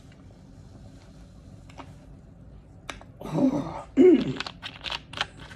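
A woman makes two short, throaty vocal sounds a little over three seconds in, the second louder, just after drinking soda. A run of small clicks and crackles follows as the plastic bottle is handled.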